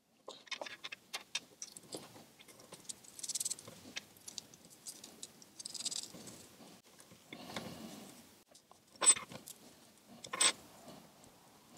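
Small clicks and faint rustling as hands handle a motorcycle dash-camera module and its metal mounting bracket. Near the end come two sharper metallic clicks as an Allen key is worked in the bracket screw.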